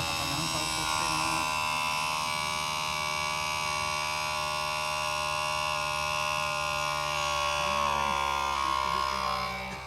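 Mitsubishi Fuso Super Great truck's 6R20 turbo diesel running steadily on the road, heard from the cab as an even buzzing drone. The driver hears an abnormal rattle from the truck, which he traces to loose insulation on the intercooler pipe flapping and rubbing.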